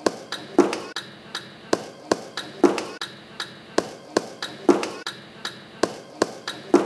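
A beat built from recorded everyday noises: sharp taps and knocks in an even, repeating rhythm, about three hits a second, with a fuller, ringing hit about every two seconds.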